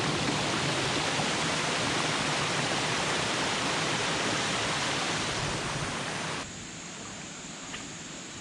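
Steady rushing of water pouring over a small waterfall into a creek. The sound drops suddenly to a quieter rush about six seconds in.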